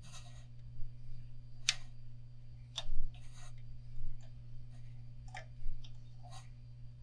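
Irregular light clicks and ticks from hand-wrapping metallic thread onto a fishing rod blank, as fingers pack the thread and turn the rod, about one click every half second to second. A steady low hum runs underneath.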